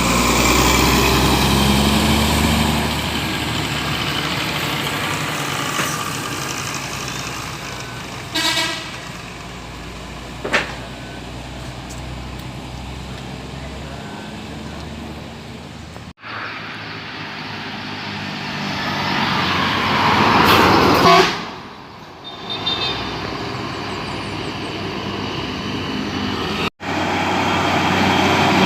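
Buses passing on a road, engines running with tyre and traffic noise, and a couple of short horn toots. The loudest moment comes about two-thirds through, as a bus passes close and its noise swells, then falls away sharply.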